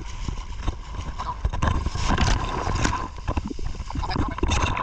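Ocean surf sloshing and splashing around the microphone, over a low, irregular rumble of breaking waves.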